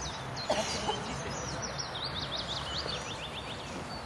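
Small birds chirping and singing in quick repeated notes, with a rapid run of trilled sweeps in the middle, over steady outdoor background noise. A short, louder call dropping in pitch sounds about half a second in.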